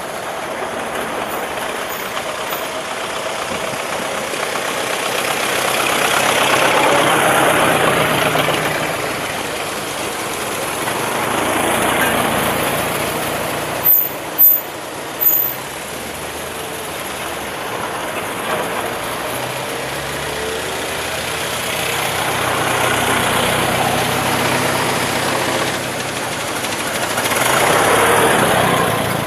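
Old cars driving past one after another: engine and road noise that swells and fades about four times as each goes by. Three short, sharp loud sounds come close together about halfway through.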